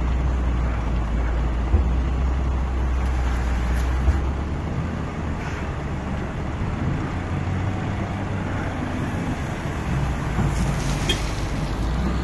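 Caterpillar 966 wheel loader's diesel engine running while the loader empties a bucket of earth into a truck bed and reverses away. A couple of short knocks come in the first few seconds, and the deep engine hum eases about four seconds in.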